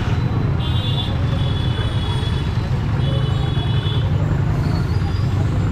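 Steady low engine rumble of traffic, with short high-pitched tones sounding again and again about every second.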